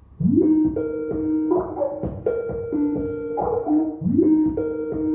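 Phone ringtone: a short melody that starts suddenly and repeats in a loop, as a call is being placed.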